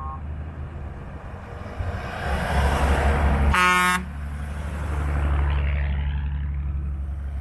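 Off-road 4x4 vehicles driving past one after another on a gravel road, engine and tyre noise swelling as each comes close. A short horn beep right at the start, and a louder horn toot of about half a second about three and a half seconds in, as a lifted truck passes.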